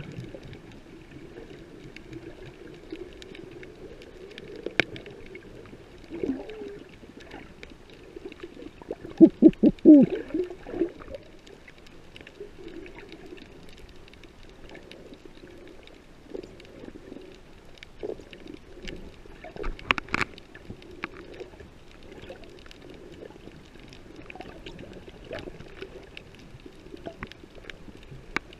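Muffled underwater sound over a coral reef: a steady low watery hum with scattered faint clicks. About nine seconds in comes a short run of loud, low, muffled pitched pulses, and a sharper cluster of clicks about twenty seconds in.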